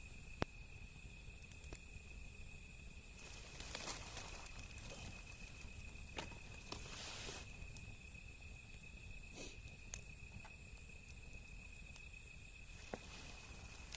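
Wood fire burning with sharp pops and crackles a few seconds apart, the loudest about half a second in, and brief hissing rustles around four and seven seconds in. A steady high insect drone runs underneath.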